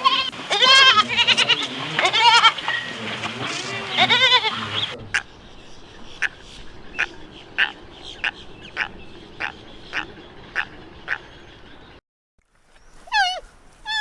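Bleating livestock, repeated wavering bleats for about the first five seconds. Then a different animal gives short, evenly spaced chirps, about two a second, until a brief silence near the end, followed by a cat's single falling meow.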